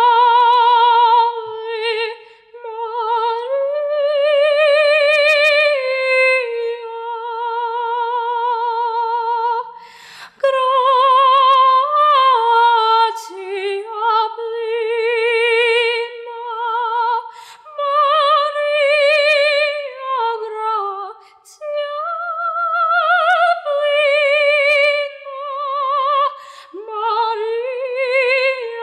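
A teenage girl singing solo and unaccompanied, holding long notes with a wide vibrato, with two short pauses for breath.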